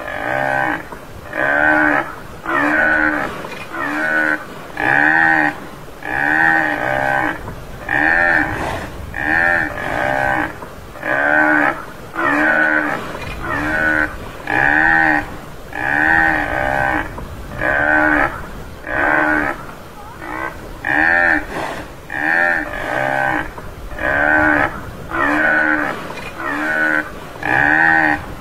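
Tamaraw (Mindoro dwarf buffalo) calls repeated at an even pace, a little more than one a second. Each call is a short moo whose pitch rises and falls.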